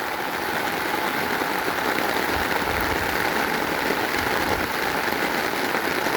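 Heavy rain pouring down steadily in a downpour, with no breaks or distinct events.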